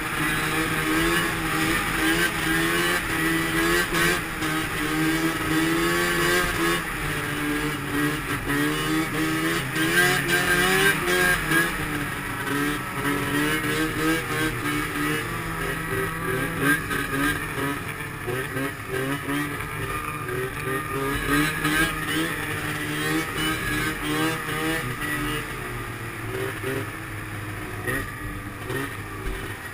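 Arctic Cat M7 mountain snowmobile's two-stroke engine running under throttle, its pitch wavering up and down as the rider works the throttle over the snow. The engine eases off somewhat in the last few seconds.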